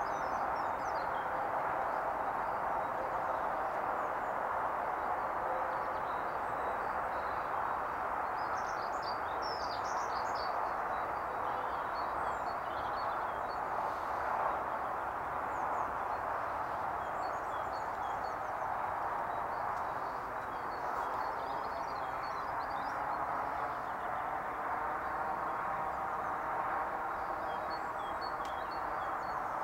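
Steady roar of motorway traffic, tyres on the road, heard from a garden, with small birds chirping over it now and then.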